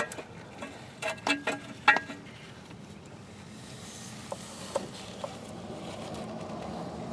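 Metal parts clinking and knocking during the first two seconds as the thermostat and gasket are worked out of the housing, then a few faint ticks over a faint steady hiss that slowly grows louder.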